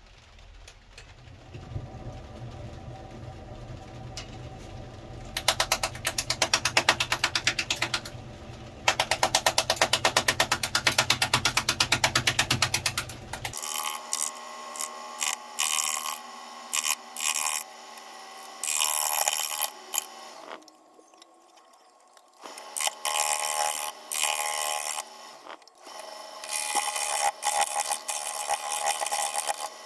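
A Record Power wood lathe starts and runs with a rising motor hum. A fast, even clatter of knocks comes in, many a second, as a bowl gouge meets the uneven surface of the spinning, out-of-round cherry log. After that come repeated bursts of scraping as the gouge cuts the spinning cherry blank, each burst stopping and starting as the tool comes on and off the wood.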